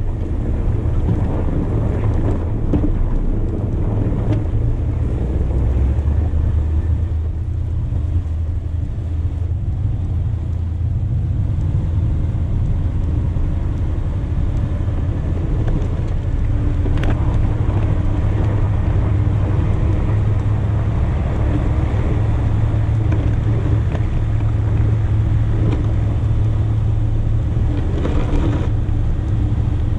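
The 8.1-litre V8 petrol engine of a Chevy 2500HD runs steadily while the truck plows snow. A brief knock comes about halfway through and another near the end.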